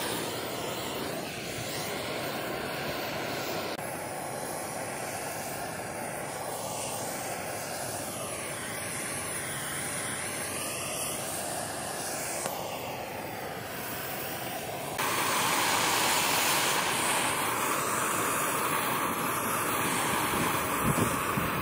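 Handheld butane torch hissing steadily as its flame chars a wooden frame. The hiss shifts at a few cuts and gets louder about two-thirds of the way through.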